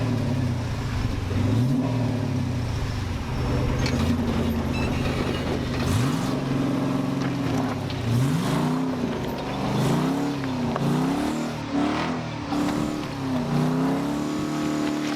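Rock crawler's engine revving up and down again and again as the rig struggles for traction on rock, the revs coming quicker toward the end, with a few sharp knocks mixed in.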